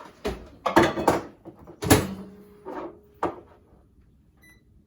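Microwave oven being loaded: several knocks and clunks of its door and the bowl, the loudest about two seconds in, then a short high keypad beep near the end.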